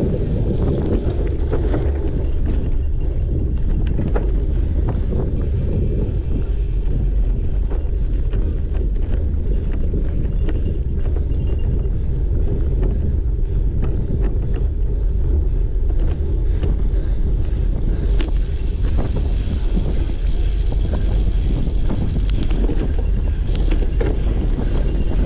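Steady low wind rumble on the microphone of a cyclocross bike ridden at race speed in a strong wind, with scattered sharp clicks and rattles from the bike over rough ground.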